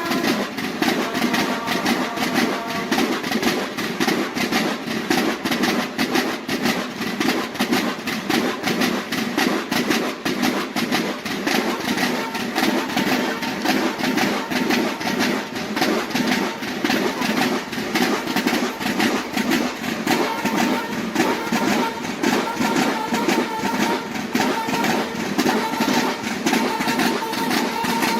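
Mexican banda de guerra playing: snare drums beat a fast, dense military cadence, and bugles sound held notes at the start and join in again about two-thirds of the way through.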